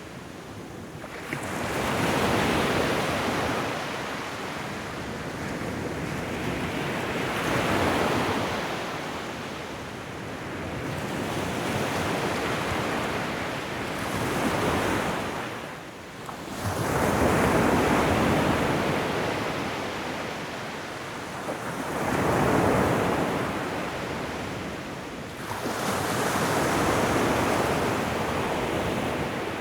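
Ocean waves breaking and washing up a shoreline, a steady rushing that swells and ebbs about every five seconds.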